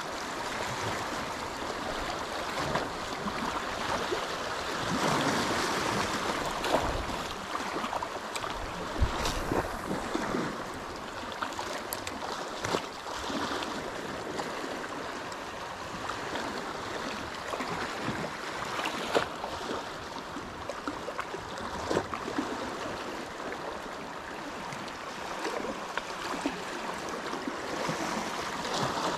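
Small sea waves lapping and splashing close by, a steady wash with scattered sharp splashes.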